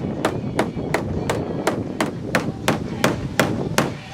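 Hammer blows struck at an even pace, about three a second, with a short ring after each, over a steady background noise.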